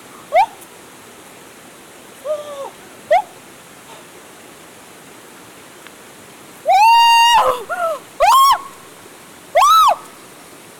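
Steady rushing water with a series of high-pitched calls over it. There are a few short rising yelps in the first three seconds, then longer, louder calls from about seven seconds in.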